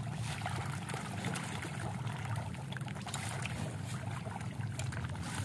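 Water trickling and lapping in a tarp-lined fish pond, with scattered small splashes from fish feeding at the surface.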